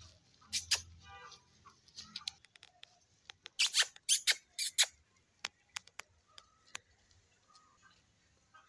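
A calf suckling at a goat's teat: a run of short, sharp sucking and smacking sounds, loudest in a cluster of about four around the middle, then a few single clicks.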